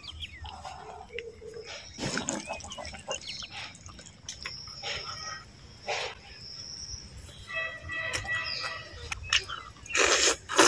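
Birds chirping and whistling in a garden, with scattered small wet clicks and smacks of someone eating rice and curry by hand. Near the end comes a short, louder rush of noise.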